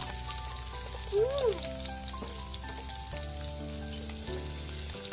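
Marinated pork sizzling and crackling in lard in a very hot wok, over soft background music of held notes.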